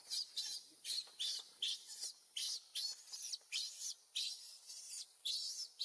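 A rapid series of short, high-pitched chirping calls from an animal, about two or three a second, keeping up an even rhythm.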